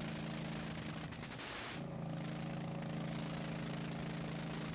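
16 hp Briggs & Stratton Vanguard V-twin engine running steadily on a test stand. About a second and a half in, its speed dips briefly with a short rush of noise, then it settles back to a steady run.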